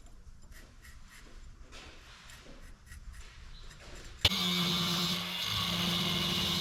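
Faint small scrapes and taps. About four seconds in, a belt sander starts abruptly with a steady hum and hiss as it grinds the forged knife blank.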